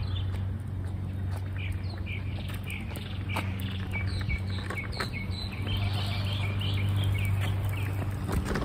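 Small birds chirping, many short high chirps in quick succession, over a steady low hum with a few sharp clicks.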